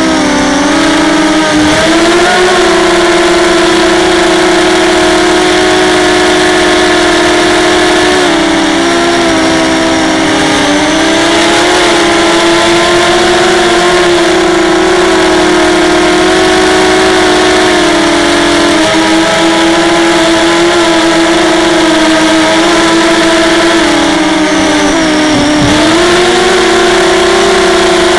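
ZMR250 racing quadcopter's four brushless motors and propellers whining steadily, heard from the camera on board. The pitch dips briefly a few times as the throttle eases, then climbs back.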